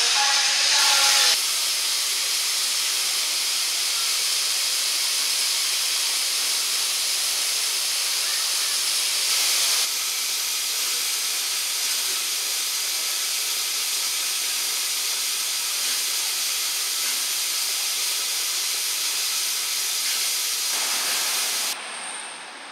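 LNER A4 steam locomotive 4464 Bittern blowing off steam at rest, a loud steady hiss. The hiss cuts off sharply near the end.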